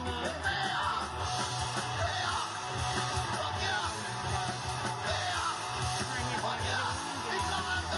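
Rock music with guitar and a wavering singing voice over a steady beat.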